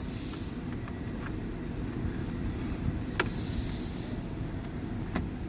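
Plastic dash trim bezel being pried with a trim tool against stiff retaining clips: short scraping rubs and two sharp clicks, the second near the end, over a steady low rumble.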